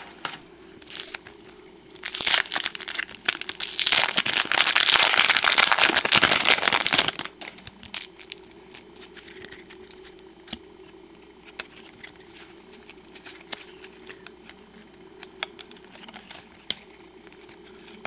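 Wrapper of a 1991 Topps Stadium Club baseball card pack torn open and crumpled: loud crinkling for about five seconds starting about two seconds in. After it, soft clicks and rustles of the cards being handled.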